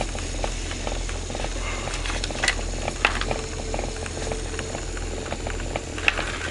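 Homemade magnetic flywheel motor and motor-generator running: a steady low hum with a fine rattle and scattered irregular clicks, and a thin whine for a couple of seconds around the middle.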